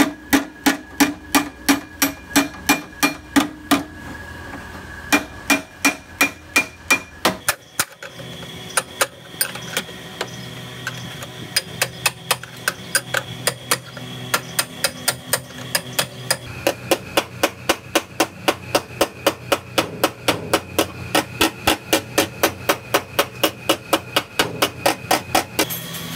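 Hammer beating the crash-damaged steel body panels of a Suzuki Mehran back into shape, a steady run of sharp ringing blows about three to four a second, with a short pause about four seconds in.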